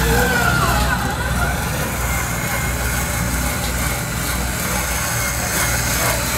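Scale RC Unimog crawler truck creeping over dirt with a steady, low, diesel-like engine drone, over chatter in the hall.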